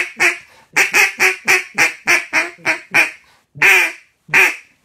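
Duck call blown in a comeback call: a fast run of short, loud quacks, about four a second, then two longer quacks near the end.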